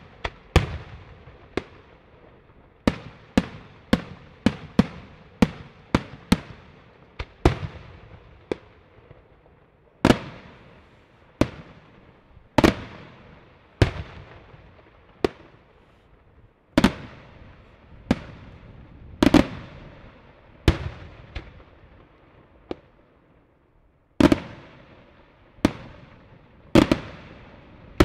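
Daytime aerial fireworks shells bursting overhead: a long series of sharp bangs, each trailing off in echo. The bangs come in quick succession at first, then more widely spaced, with a lull of about two seconds after the middle.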